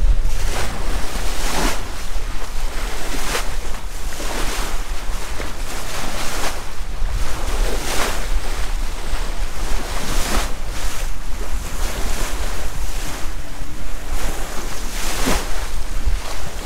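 Strong wind buffeting the microphone over the rush and splash of water along a wooden sailboat's hull as it drives fast through choppy sea, with repeated irregular surges of spray.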